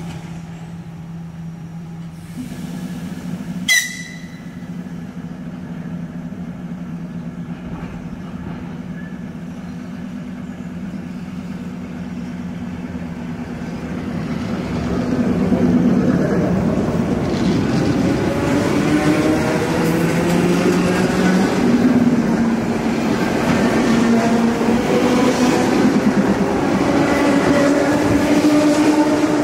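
ЭР-series electric suburban train humming steadily as it stands at the platform, with one sharp metallic clack about four seconds in. It then pulls away, getting louder as its traction motors whine upward in pitch and its carriages roll past.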